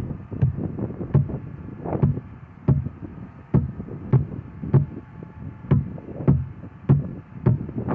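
Hammer striking steel wedges (feathers and shims) set in drilled holes to split a large rock: about a dozen sharp knocks at an even pace, roughly one every two-thirds of a second.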